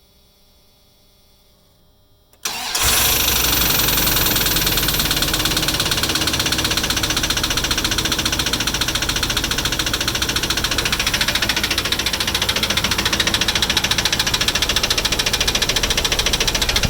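1996 Dodge Ram 1500's 5.9 Magnum V8 firing up suddenly about two seconds in, then running steadily with a rapid, even knock: the undiagnosed knocking noise the owner is asking about.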